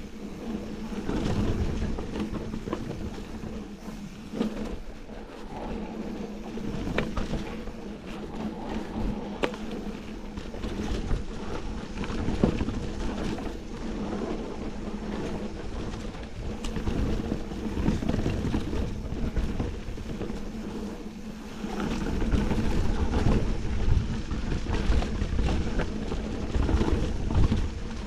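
Mountain bike ridden fast down a dirt and gravel forest trail: tyres crunching over the ground and the bike rattling over bumps, with wind buffeting the camera's microphone. The low rumble grows heavier over the last several seconds.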